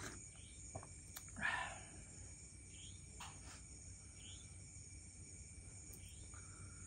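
Crickets chirring steadily in high, thin tones. A short breath-like rush of noise comes about a second and a half in.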